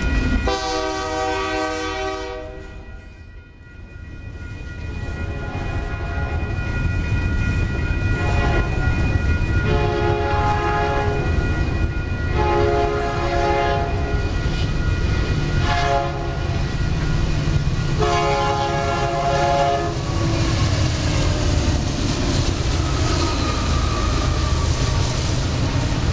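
Diesel freight locomotive horns and a passing freight train. A first horn chord sounds for about two seconds, then a second locomotive blows the grade-crossing signal, long, long, short, long, over the steady rumble and rail clatter of the passing train.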